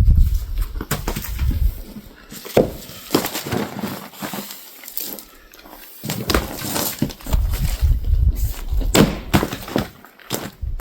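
Split firewood pieces knocking and clattering together as they are handled and moved, a string of irregular sharp clunks and cracks. Low rumbling on the microphone comes and goes in between.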